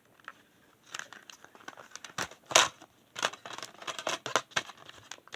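Plastic CD case and packaging being handled and opened: an irregular run of crinkling and sharp plastic clicks, the loudest about two and a half seconds in.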